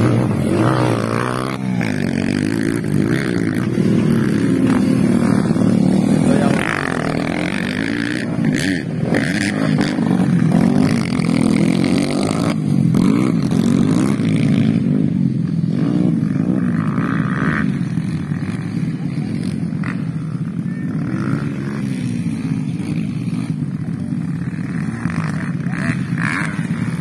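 Several dirt-track trail and motocross motorcycles running on a dirt circuit, their engines revving up and falling back over and over as they ride the track. They are loudest in the first half and a little farther off after that.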